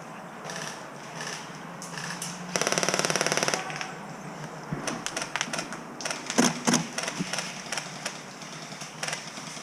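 Airsoft electric gun fired in a rapid full-auto burst of about a second, about two and a half seconds in, followed by scattered single sharp cracks of shots and BB hits.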